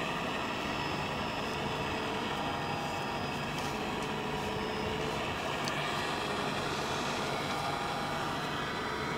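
Hydraulic pump and motors of a 1:14.5 Wedico CAT 345D LME RC excavator whirring steadily as it digs, with a couple of faint clicks in the middle.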